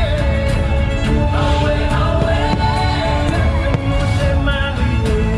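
Fireworks show soundtrack with a singing voice playing loudly, with several fireworks bangs going off through it.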